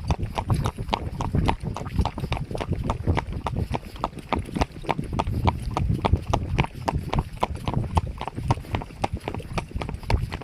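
Horse hooves clip-clopping on a hard surface at a quick, steady pace, about six or seven hoof strikes a second.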